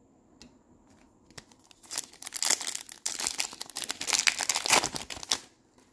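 The wrapper of a 2021 Topps Chrome Tennis card pack being torn open and crinkled by hand: a dense crackling that starts about two seconds in and stops shortly before the end.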